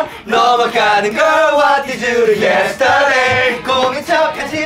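Several men singing and chanting loudly together, their voices overlapping.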